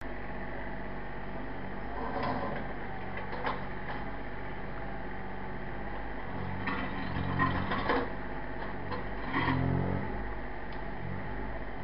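Mini digger's diesel engine running steadily, with the engine note swelling under load and clanks and rattles several times as it works, most strongly about seven to eight seconds in and again near ten seconds.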